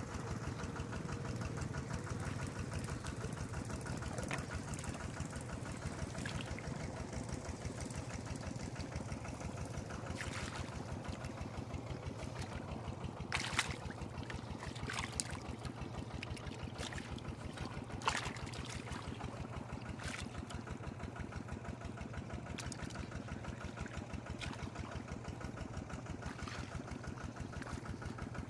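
An engine running steadily at idle, a fast, even low throb. A few short sharp clicks stand out over it around the middle.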